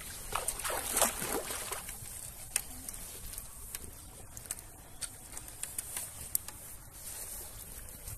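Water splashing in shallow water from a landing net holding a landed carp, one burst of splashing lasting about a second and a half near the start, then scattered small drips and splashes.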